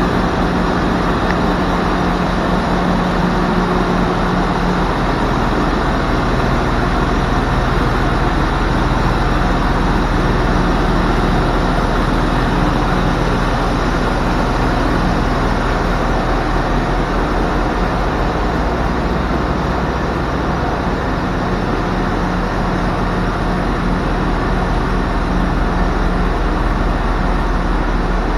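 Diesel engine idling steadily, a constant low hum with no revving.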